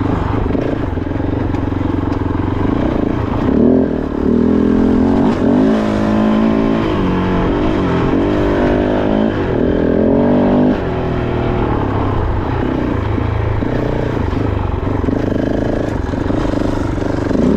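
Kove 450 Rally's single-cylinder engine being ridden over rough single track, the revs rising and falling with the throttle. It is loudest and revs hardest from about four seconds in until about eleven seconds in, then settles lower.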